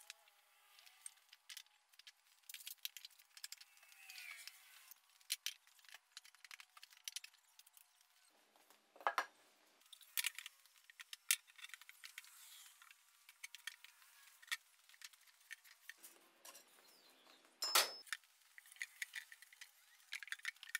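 Light clicks and clinks from a steel lever bar, timber blocks and bricks being handled while a heavy anvil is levered up onto a timber crib. A few louder knocks stand out, about nine seconds in and again near the end.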